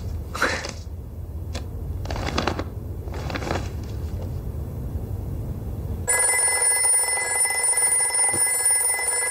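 A telephone bell starts ringing about six seconds in, a steady, continuous ring that stops at the end: an incoming call. Before it there is a low rumble with a few brief swishing sounds.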